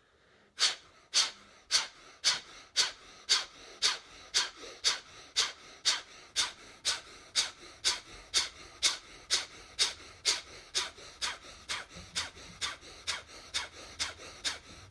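A man's forced breathing through the nose in a steady rhythm, about two sharp breath strokes a second. Each out-breath is pushed out with a pull of the belly: the rapid, kapalbhati-style breathing of the Sudarshan Kriya pranayama.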